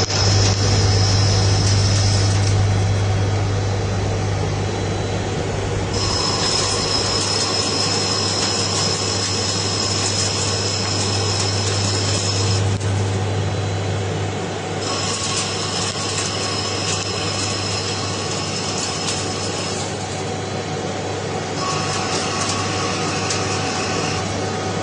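CNC lathe running with a steady low hum, while cutting passes add a high whine and hiss that comes and goes four times, in spells of a few seconds each.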